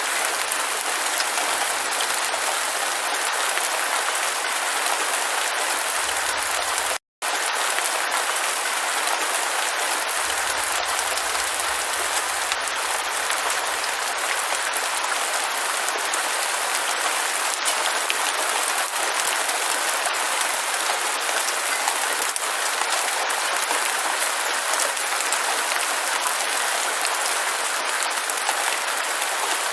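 Steady rain falling, an even hiss of many drops, with a split-second dropout to silence about seven seconds in.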